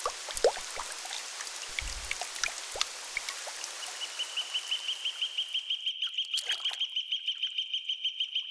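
Raindrops pattering and plinking on a lake surface. From about halfway a high, steady trill pulses roughly six or seven times a second, with short swishes of water stirred by a hand.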